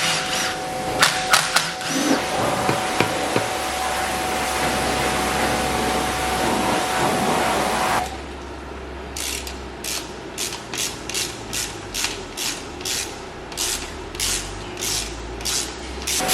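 A steady hiss with a steady tone, then, after an abrupt cut about eight seconds in, a hand ratchet clicking in an even rhythm of about two clicks a second.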